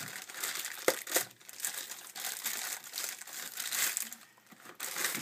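Plastic wrapping crinkling and rustling as it is pulled off and crumpled in the hands, in irregular spurts with a couple of sharp crackles about a second in.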